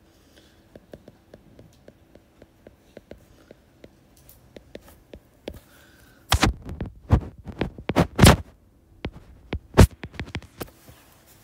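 Stylus tapping and clicking on a tablet screen while handwriting: light ticks at first, then a run of loud sharp taps from about six seconds in.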